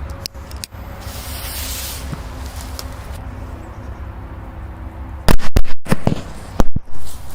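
Firecrackers exploding in a hole in the ground: several loud, sharp bangs in two quick groups about five seconds in, over a steady low hum.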